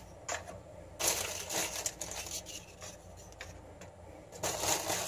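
Plastic wrapper of a packet of María biscuits crinkling in short bursts as biscuits are pulled out of it, about a second in and again near the end.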